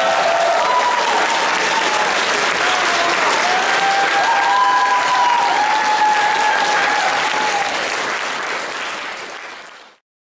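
Audience applauding, with long drawn-out cheers over the clapping. The applause fades out near the end.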